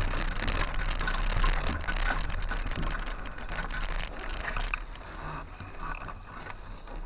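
Honda motorcycle ridden slowly at low revs over rough cobbled ground: a steady low engine hum under constant small rattles and knocks, growing quieter after about four seconds.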